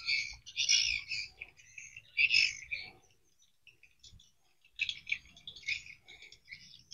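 Small birds chirping in short, repeated high-pitched bursts, with a near-silent pause in the middle.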